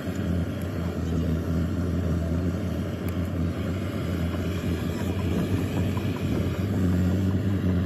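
A steady low motor drone with a constant background of outdoor noise.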